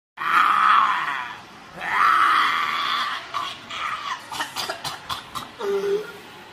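Roaring in the manner of the MGM lion logo: two long, loud roars, then a run of shorter, quieter growls.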